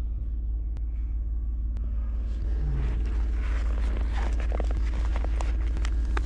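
Chevrolet Silverado pickup's engine idling steadily, warming up to defrost the frosted truck. From about two and a half seconds in, scattered clicks and rustling sound over the idle.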